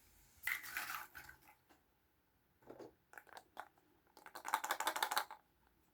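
Small plastic Kinder Surprise toys and their packaging being handled: a rustle, a few separate clicks, then a quick run of rattling clicks.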